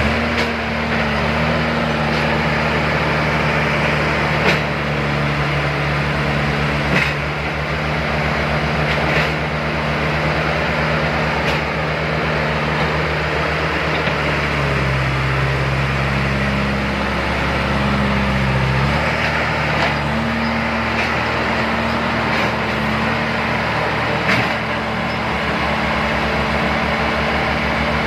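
Heavy diesel engines of a backhoe loader and a tractor running hard on a climb, engine speed shifting up and down several times, with a few short sharp knocks.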